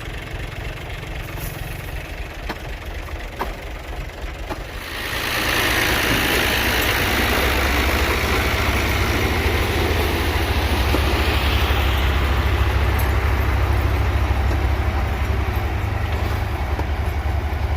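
Tractor engine driving a wheat thresher. About five seconds in, the engine speeds up and a loud rushing threshing noise sets in over a steady low engine rumble.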